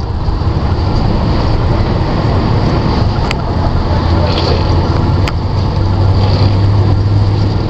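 The drivetrain of a 1996 Jeep Grand Cherokee (ZJ) running with a steady, loud, low drone. The grinding noise in it is one the owner is trying to trace, and he thinks it sounds like the transfer case chain moving around.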